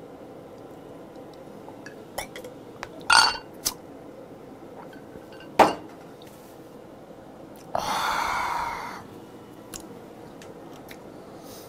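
A drinking glass clinks and knocks against a table, with one sharp knock as it is set down, then a long breathy exhale of about a second after a strong drink is downed.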